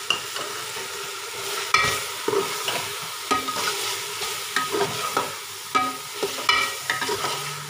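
Metal spatula stirring a biryani masala of fried onion, tomato and spices in a large metal pot, scraping and knocking against the pot at irregular moments over a steady frying sizzle.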